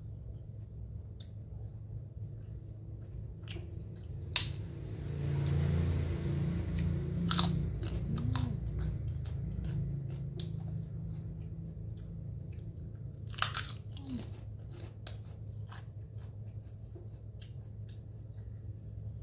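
Close chewing and mouth sounds of a person eating rice and fish with their fingers, with many small clicks and smacks scattered throughout. A louder, noisier stretch comes about five seconds in and lasts a few seconds. A low steady hum runs underneath.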